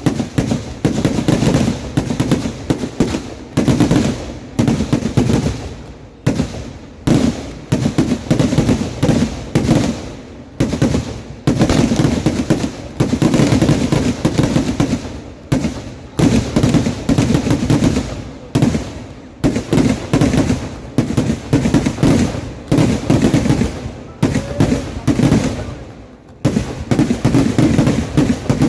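Kerala festival fireworks (vedikkettu): dense, rapid volleys of loud bangs running on almost without a break, with short lulls every few seconds.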